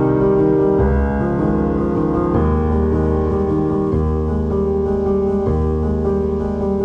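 Background music played on piano or electric keyboard, slow sustained chords that change about once a second.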